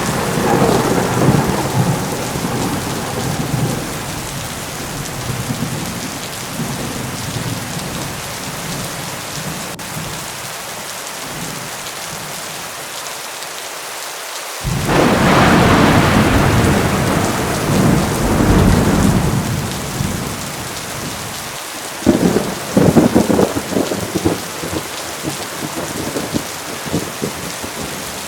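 Heavy rain pouring steadily through a thunderstorm. A thunder rumble dies away over the first few seconds, a loud clap of thunder breaks suddenly about halfway through and rolls on for several seconds, and a burst of sharp crackling thunder follows a few seconds later.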